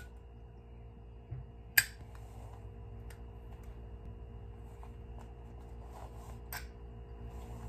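A cigarette lighter clicking shut with a sharp click about two seconds in, followed by a second, lighter click later on, over a steady low hum.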